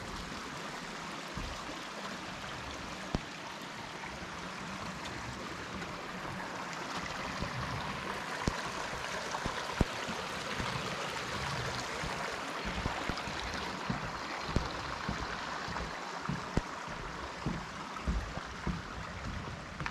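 Shallow creek running over rocks, a steady rush of water that grows a little louder around the middle. A few light knocks and thumps come now and then.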